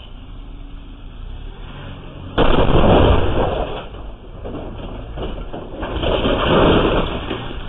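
An SUV crashing into masonry at the edge of a driveway: a sudden loud crash about two and a half seconds in that fades over a couple of seconds, then swells again near the end. Heard through a home security camera's microphone.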